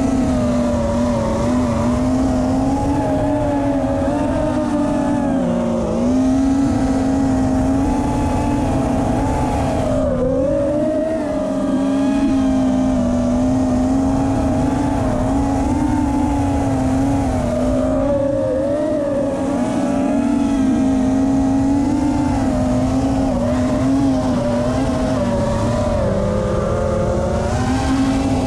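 Chameleon FPV quadcopter's brushless motors and propellers whining in flight, the pitch wavering up and down as the throttle changes.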